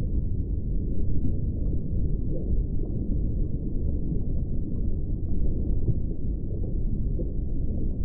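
Steady, muffled low rumble of water heard underwater, with a few faint scattered clicks.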